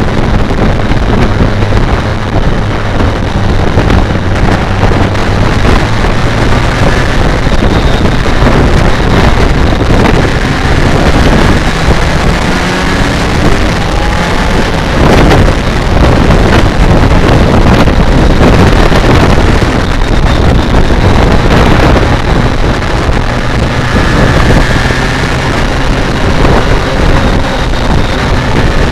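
BMW K1200R Sport's inline-four engine running under way at road speed, heard with heavy wind noise on the microphone. About halfway through it rises in pitch as the bike accelerates, then it runs steadily and drops off near the end.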